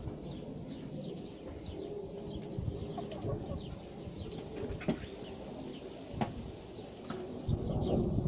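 Small birds chirping in quick short notes, over a low steady clucking of chickens. A few sharp clicks, and a low rumble swells near the end.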